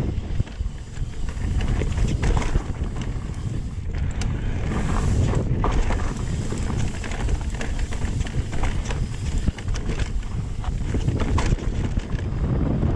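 Wind rushing over the microphone of a mountain bike rolling down a rocky dirt trail, with scattered clicks and knocks from the bike over rocks and ruts.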